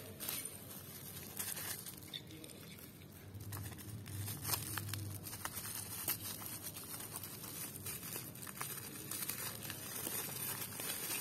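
Black plastic bubble wrap crinkling and tearing as it is cut open and pulled apart by hand, in irregular crackles.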